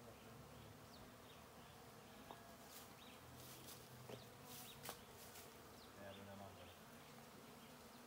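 Faint buzzing of a mass of honeybees disturbed from their nest, with single bees' hums rising and fading as they fly close.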